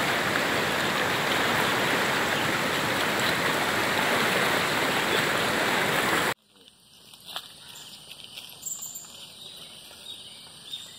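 Muddy floodwater rushing through a plantation, a steady loud noise of water that cuts off suddenly about six seconds in, leaving only faint background sound.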